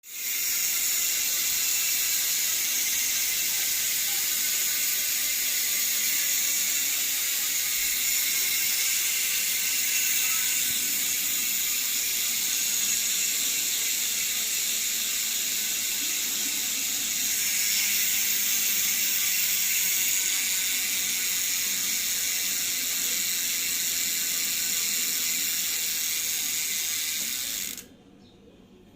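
Maxzone Aggressor mountain-bike rear hub freewheeling: the freehub's ratchet pawls clicking so fast they merge into a loud, steady buzz, with a slight swell partway through, then cutting off suddenly near the end. The hub has two years of hard trail riding on it and has been regreased once.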